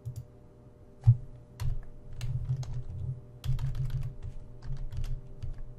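Computer keyboard being typed on: irregular clusters of key presses, with one sharper knock about a second in.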